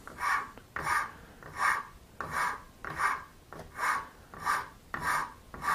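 A fine-toothed hand saw scraping back and forth across a piece of horn held in a vise, about eight even strokes, roughly three every two seconds. It is cutting shallow grooves into the horn's flat glue face to give the glue more surface to grip.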